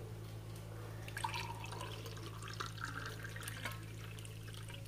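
Liquid poured from a jug into a glass over ice cubes, splashing faintly with a few small clinks.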